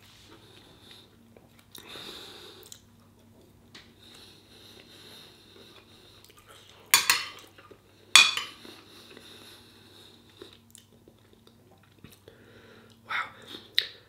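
Metal cutlery clinking and scraping on a plate, with two sharp clinks around the middle and two lighter ones near the end. Quiet chewing comes in between.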